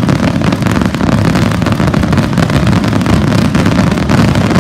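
Dense fireworks barrage: a loud, continuous low rumble of overlapping bursts, laced with rapid crackling.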